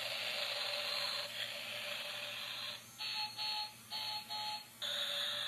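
Transforming robot car toy playing tinny electronic music and effects through its small built-in speaker. In the second half the sound breaks off and restarts several times, with a steady beep in the short pieces.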